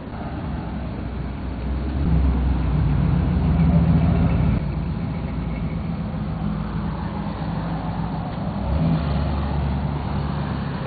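A motor vehicle's engine running steadily, getting louder about two seconds in.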